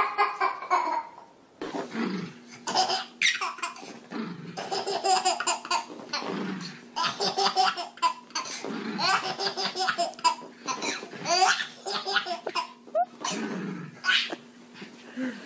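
A baby laughing hard in repeated bursts of giggles and belly laughs, with a faint steady hum underneath.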